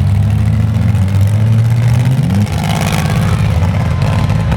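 Demolition derby minivan and pickup truck engines revving hard, their pitch climbing and dropping, with one clear rise about two seconds in.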